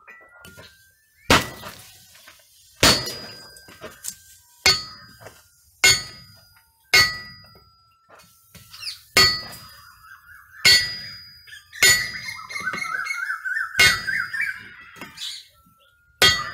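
Hammer blows on red-hot steel lying on a railroad-rail anvil, about a dozen strikes roughly a second apart, each with a short metallic ring from the rail. The steel has been fluxed with borax, so this is the forge-welding of the folded axe stock.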